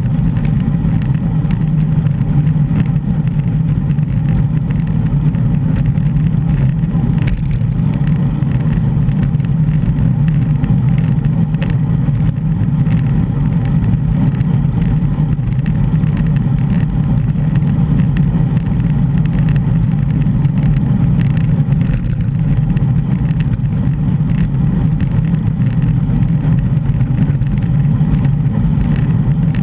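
Steady low rumble of wind buffeting a bike-mounted GoPro microphone, mixed with road noise from a moving bicycle and scattered small rattles and clicks.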